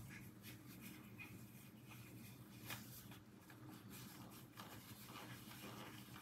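Near silence, with a few faint soft rubs and light clicks from a plastic coin capsule being wiped clean of condensation.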